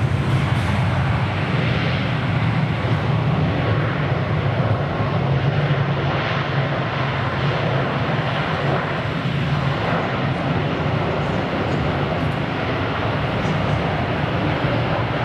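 Boeing 777-200ER's twin jet engines rumbling steadily as the airliner rolls down the runway after touchdown, a little louder in the first few seconds.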